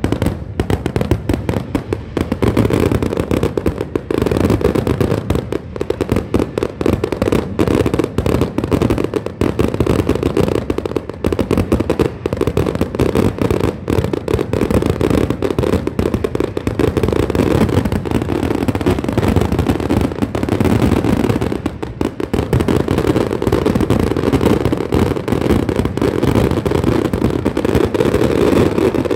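Fireworks finale-style barrage: a rapid, continuous run of overlapping shell bursts and crackle, heaviest in the low bangs, with a brief lull about three-quarters of the way through.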